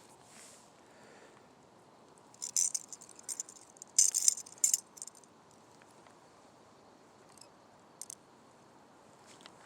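Several short bursts of light metallic jingling and clicking. The loudest comes about four seconds in, with another small one near the end.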